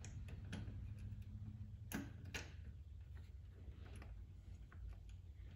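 Faint small metallic clicks and ticks as a tank-strap screw is fiddled into its threads by hand, with two sharper clicks about two seconds in.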